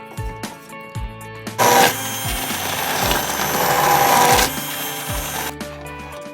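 An electric blender or mixer grinder runs for about four seconds, starting about one and a half seconds in and stopping near the end, with its sound swelling before it cuts off. Background music plays under it.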